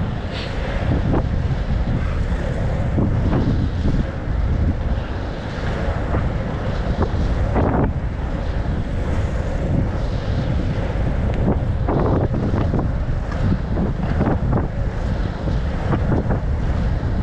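Wind buffeting the microphone at inline speed-skating race pace, over a steady low rumble. Short swishing streaks come every half second to a second, in the rhythm of skating strides.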